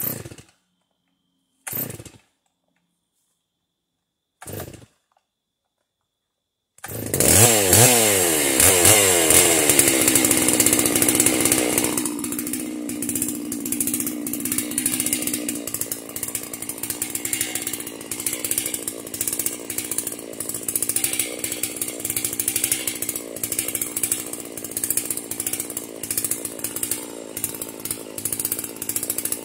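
Chainsaw mounted in a homemade log mill: three brief bursts of sound, then about seven seconds in the engine starts, its speed falling and settling into steady running that carries on through the rest.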